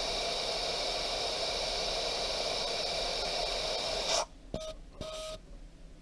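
Steady hiss of air venting from four tires through a DIY four-tire deflation manifold as they are aired down to about 12 PSI. The hiss cuts off suddenly about four seconds in, and two short high tones follow.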